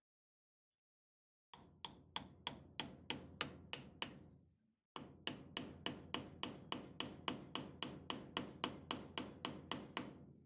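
A hammer driving a wooden wedge into the top of a new oak handle to fix a cobbler's hammer head: quick, even taps about three a second, in two runs with a short pause about halfway.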